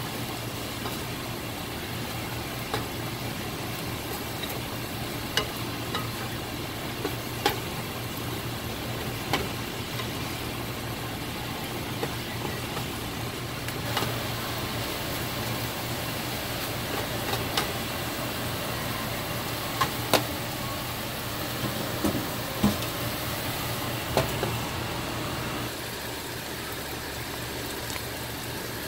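Sliced bell peppers and onions sizzling in a non-stick frying pan while a wooden spatula stirs them, scraping and knocking sharply against the pan every few seconds. A steady low hum runs underneath and drops a little near the end.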